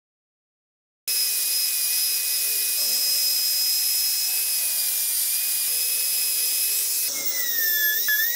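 Angle grinder fitted with a sanding disc, running with a steady high whine as a small wooden part is sanded against it; it starts abruptly about a second in. Near the end it gives way to a small electric drill whose whine wavers in pitch as it bores into a wooden dowel.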